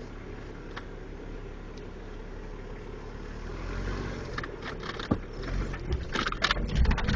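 Off-road vehicle's engine running low and steady, then working harder as the vehicle climbs over rough ground, with knocks and rattles from about five seconds in that get louder and denser near the end.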